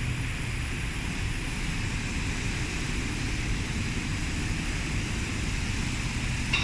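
Steady background noise of a machinery assembly hall: an even low rumble with a hiss above it, and no distinct event standing out.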